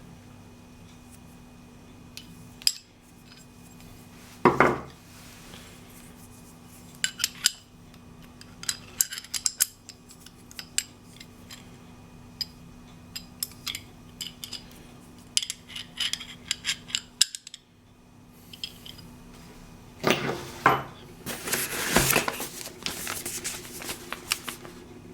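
Hands handling a new cordless angle grinder and its packaging: scattered clicks and clinks of hard parts being picked up and set down, over a steady faint hum. There is a louder rustle about four seconds in, and a busier spell of rustling and scraping about twenty seconds in.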